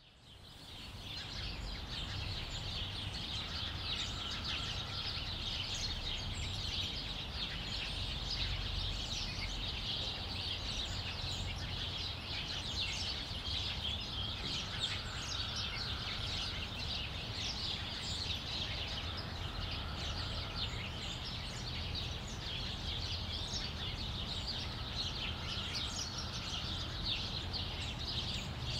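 House sparrows chirping, many short overlapping chirps with no break, over a low steady rumble.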